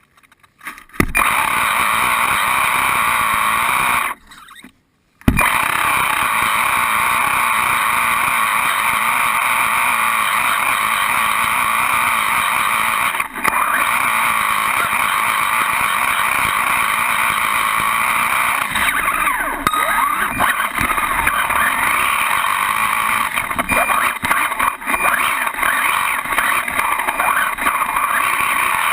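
Electric motor and gear drivetrain of an Associated RC10 radio-controlled buggy running, a steady, loud mechanical noise picked up by a camera mounted on the car itself. The sound cuts out briefly near the start and again about four seconds in.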